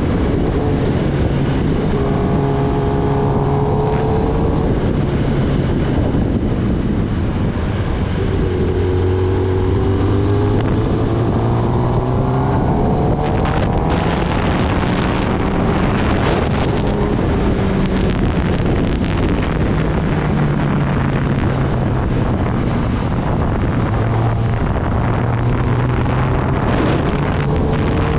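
Kawasaki Ninja ZX-10R inline-four engine running on the move, its pitch rising and falling with throttle and gear changes, under heavy wind noise on the microphone.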